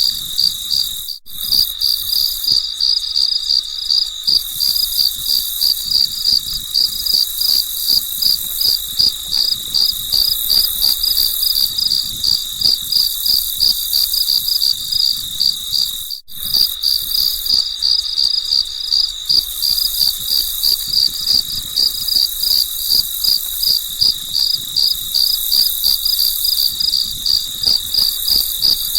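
Crickets chirping in a steady, evenly pulsed rhythm, a looped nature-sound track that cuts out for a split second twice.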